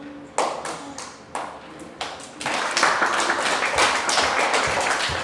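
Hand clapping: a few separate claps at first, then about two and a half seconds in the clapping thickens into steady applause from a small group.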